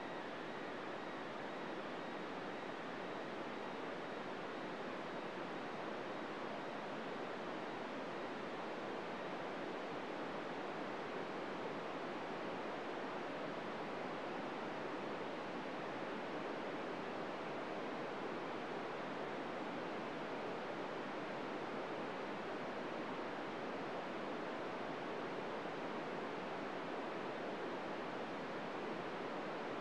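FM radio receiver hiss: steady static on 145.800 MHz with the squelch open and no SSTV tones from the International Space Station coming through, the station's signal lost near the end of its pass.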